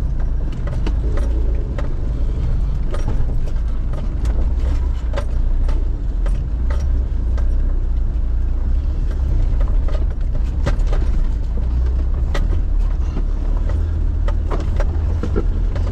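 A 4WD's engine running low and steady as the vehicle crawls slowly over rocks, with frequent short sharp knocks and clicks over the rumble.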